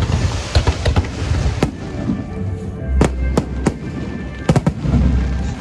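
Aerial fireworks bursting in a string of sharp bangs, several in quick succession about three to four and a half seconds in, with crackling between.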